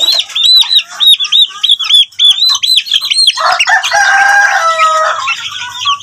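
Month-old chicks peeping loudly and rapidly, about four high arching peeps a second: the distress calls of chicks being chased and handled. About halfway through, a grown chicken gives a lower, drawn-out call lasting nearly two seconds.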